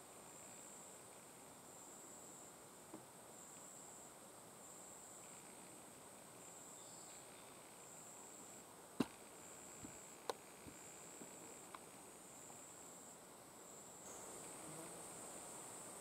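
Faint, high-pitched insect chirring in pulses about once a second, becoming continuous near the end, over quiet hiss. Two sharp clicks come a little past halfway.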